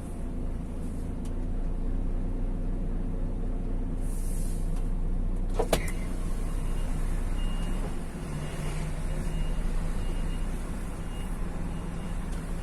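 Vehicle engine running steadily with road noise while riding, with one sharp click about halfway through.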